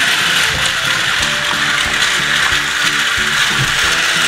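Battery-powered toy train's plastic gear motor whirring and rattling steadily as it runs on plastic track, with scattered clicks. A simple tinny tune plays alongside.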